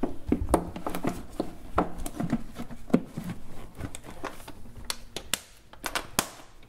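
Hard plastic airbox lid of a Volvo 850 Turbo being set down and pressed into place by hand, making an irregular run of clicks and knocks.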